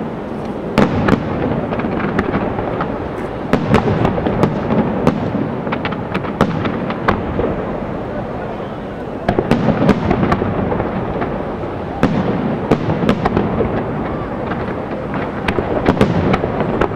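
Aerial fireworks display: a dense, continuous run of shell bursts and crackle, with many sharp bangs scattered through it and somewhat fewer near the middle.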